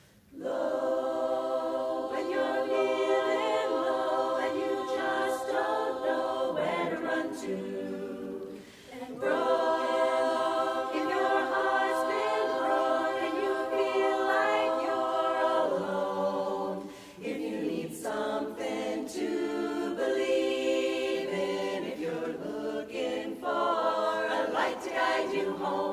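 A cappella chorus singing held chords as a new song begins. The chorus comes in suddenly at the start and breaks off briefly about a third of the way in and again about two-thirds of the way through.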